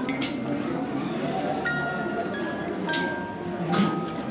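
Sharp clinks of hard objects, three of them, each followed by a short high ringing tone at a different pitch, over a steady background of shop chatter and music.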